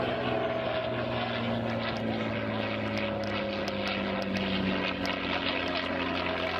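Propeller-driven light aircraft flying overhead, its engine droning steadily with a pitch that slowly falls as it passes.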